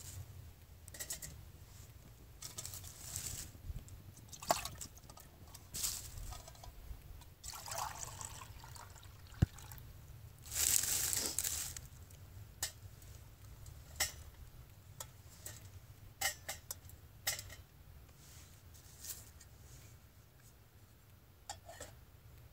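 Metal camp cookware being handled: scattered clinks, clicks and scrapes, with one sharp click just before the middle. Water is poured into a small metal cup for about a second midway, the loudest sound.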